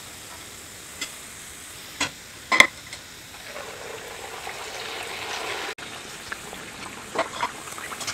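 Semolina puris deep-frying in hot oil, a steady sizzle broken by a few sharp clicks in the first three seconds. The sizzle grows louder about halfway through, then cuts off abruptly and resumes at a lower level with light crackling.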